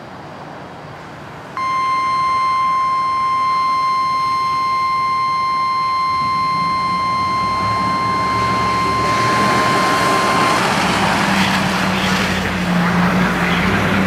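NOAA Weather Radio warning alarm tone: a single steady high beep that starts about a second and a half in, holds for about nine seconds and cuts off abruptly, announcing a warning message. A rushing noise with a low hum rises underneath it and carries on after the tone stops.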